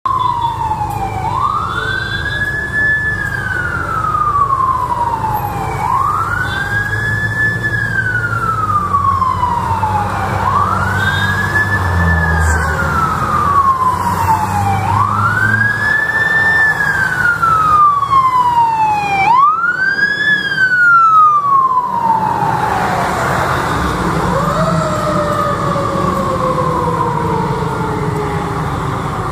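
Fire engine siren wailing in repeated sweeps, each rising quickly and falling slowly, about one every four and a half seconds. Near the end it gives way to one long, slowly falling tone, over the rumble of the truck's engine and traffic.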